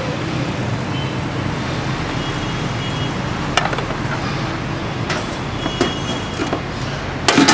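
Steady street-traffic noise with a low engine hum running under it. A few sharp knocks, the loudest near the end.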